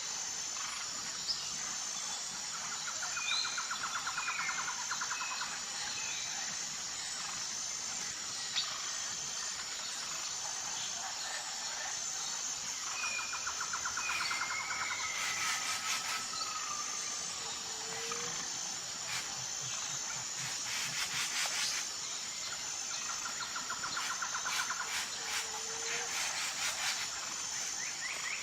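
Outdoor nature ambience: a steady, evenly pulsing high insect chirr runs throughout, with scattered short bird chirps and whistles over it. Three buzzy trills of about a second and a half each come a few seconds in, in the middle and near the end, along with a few sharp clicks.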